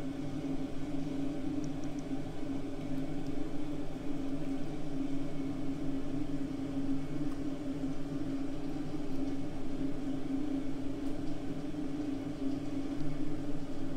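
An appliance motor running with a steady low hum at one fixed pitch.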